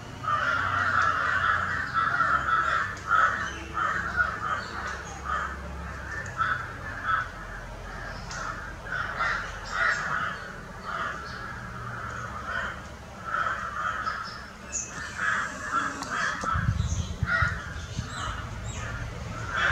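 Crows cawing over and over, with short harsh calls overlapping one another. A low rumble joins in near the end.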